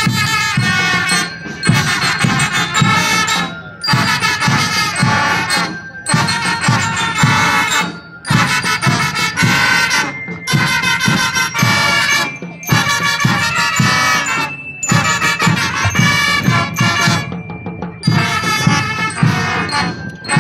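School marching band playing, pitched instruments over a steady drum beat, in phrases broken by brief pauses about every two seconds.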